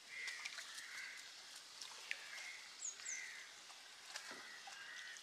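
Faint sounds of a wet fishing net being hauled over a boat's side, with water dripping and trickling off the mesh and small scattered ticks. Faint short bird calls repeat throughout.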